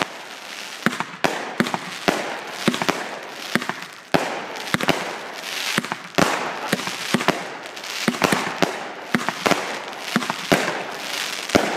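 Fireworks grand finale: many sharp bangs of shells bursting overhead in quick, irregular succession, with a dense crackle and hiss of glittering stars between them.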